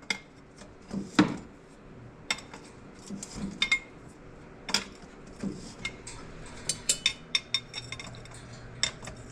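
Scattered metallic clinks and taps of hand tools and exhaust hardware being handled, the loudest about a second in.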